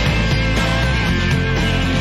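Background rock song in an instrumental passage with guitar and no singing, running at a steady level.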